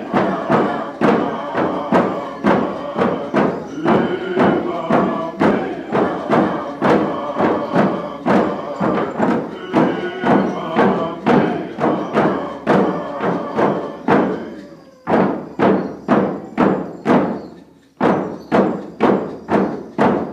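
Kwakwaka'wakw dance song: a group singing over a steady beat of hand drums, about two strokes a second. About two-thirds of the way through the singing stops and the drums go on alone, with a brief pause in the beat near the end.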